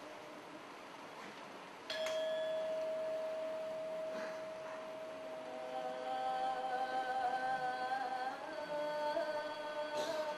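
A metal bell is struck about two seconds in and rings on in one long, steady tone. From about six seconds in, further held tones join, one wavering slightly, and a second strike comes near the end.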